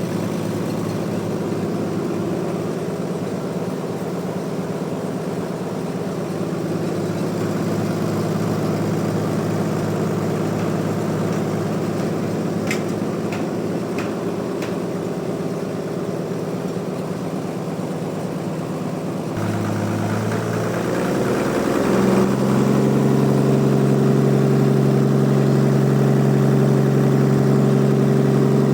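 Bandsaw sawmill machinery running with a steady hum. A few light ticks come around the middle. About twenty seconds in, the hum shifts and settles into a louder, stronger drone.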